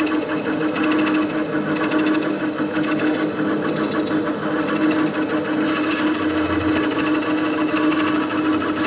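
Metal lathe running steadily while turning a wood and epoxy workpiece, a constant motor hum under a rough, even cutting noise.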